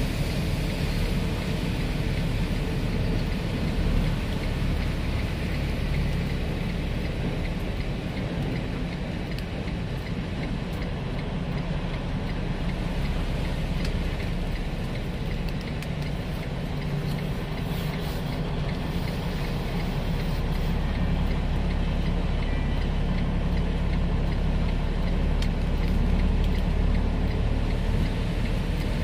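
Steady engine and road noise of a semi truck under way.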